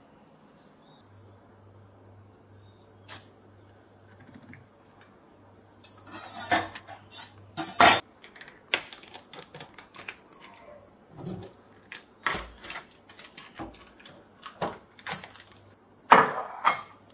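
Dishes and cutlery clinking and knocking in irregular clusters, starting about six seconds in, with loud clatters near the middle and near the end.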